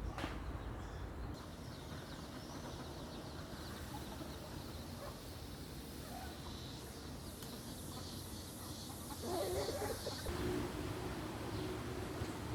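Outdoor birdsong: faint high chirps, with a great kiskadee named as the singer, and about nine seconds in a louder, lower-pitched call lasting a few seconds, over a steady low rumble.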